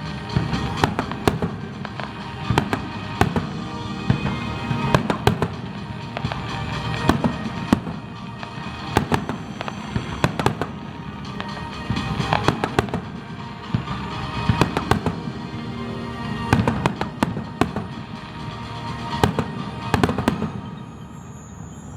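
Fireworks going off in rapid succession, a dense run of sharp bangs and crackles, with music playing alongside.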